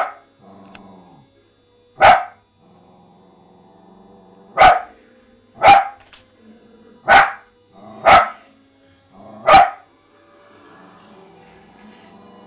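A dachshund barking: about seven loud, sharp single barks at uneven gaps of one to two seconds, over a fainter television soundtrack.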